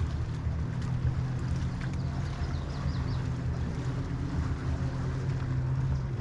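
Steady low motor hum over a rumbling outdoor background, with a few faint short chirps about halfway through.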